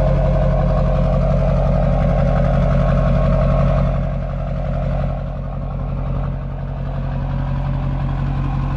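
Lifted Chevrolet pickup's turbo-diesel V8 idling steadily, heard from beneath the truck near the exhaust tip; a little quieter from about four seconds in as the microphone moves out from under it.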